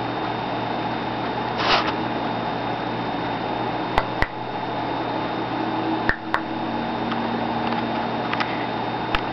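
A sleeping pet snoring over a steady hum, with one short rasp just under two seconds in and a few sharp clicks, two pairs of them and then one more near the end.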